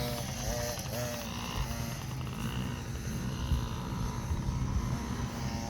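Small dirt bike engines running and revving, with voices faintly mixed in.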